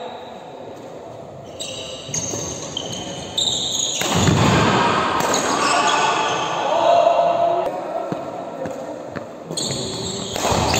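Badminton rally: rackets striking the shuttlecock and players' shoes on the court floor, with players' voices.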